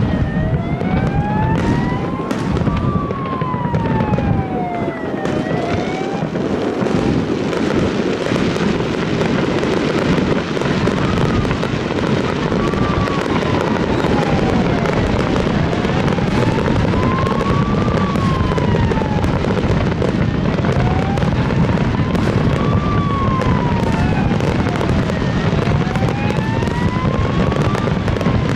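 A fireworks barrage going off continuously, a dense mix of bangs and crackles. Through it a siren wails, its pitch rising and falling over and over, about one full cycle every five seconds.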